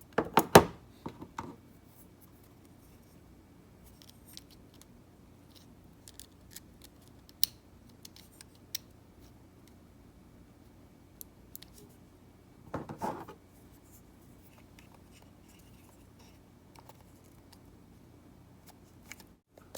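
Sharp plastic clicks and taps of a GoPro Hero 8 Black being handled as its battery and memory card are put back in. The loudest clicks come in the first second or so, another cluster about thirteen seconds in, with scattered faint ticks between.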